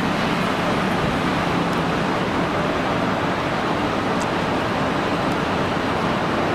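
Steady, loud vehicle noise, an even wash of sound with a faint low hum underneath and no single event standing out.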